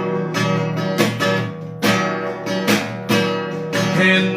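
Acoustic guitar strummed in a steady rhythm, its chords ringing on between strokes, playing a worship song's accompaniment.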